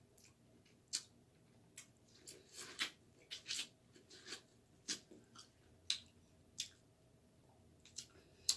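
Close-miked eating sounds: a person chewing with wet mouth smacks and short clicks every second or so, a few bunched together partway through.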